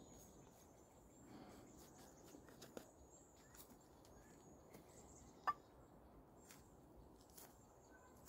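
Near silence: faint outdoor ambience with a thin, steady high-pitched trill and a few soft clicks, one sharper click about five and a half seconds in.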